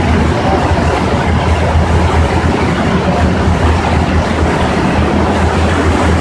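Passenger ferry running under way: a steady low engine drone with a constant rush of water and wind noise over it.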